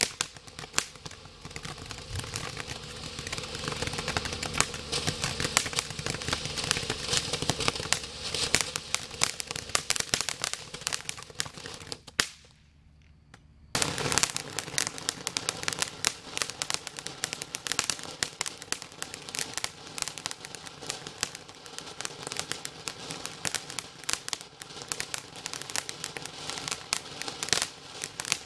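Consumer ground fountain fireworks spraying sparks with dense rapid crackling and popping. About twelve seconds in the sound breaks off into near silence for a second or so, then another fountain starts with a sharp pop and crackles on.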